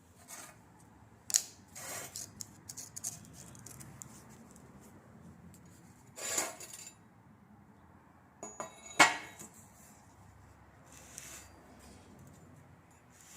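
Metal drive chain and parts being handled: scattered clinks, jingles and scrapes. A sharp clink comes about a second in, a longer scrape around six seconds, and a quick run of ticks ends in a loud clink around nine seconds.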